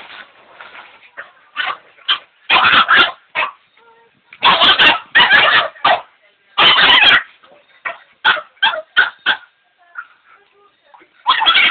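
Dogs barking in loud bursts of a second or so, followed by a run of short, quick yips.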